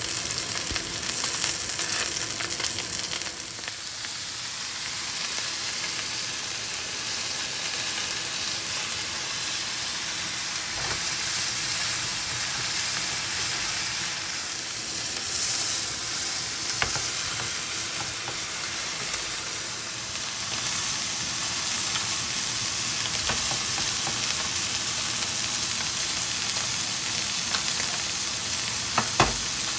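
T-bone steak sizzling steadily as it sears in hot oil in a frying pan, with a couple of sharp clicks near the end.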